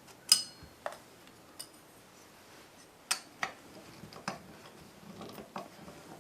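Irregular small metallic clicks and taps from a nut driver working the screws of a refrigerator evaporator fan motor's mounting bracket. The sharpest clicks come just after the start and about three seconds in.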